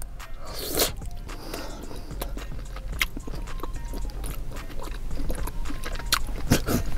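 Close-miked chewing and wet mouth clicks of someone eating steamed soup dumplings.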